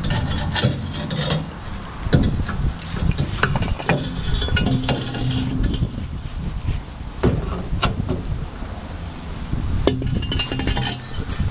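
Rusted steel exhaust pipe being worked free of its rubber hangers: repeated irregular metal clinks, knocks and scraping, over a steady low hum.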